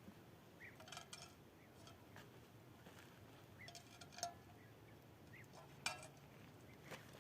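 A few light metallic clinks of cookware and utensils being handled, about four scattered strikes that ring briefly, the loudest about six seconds in.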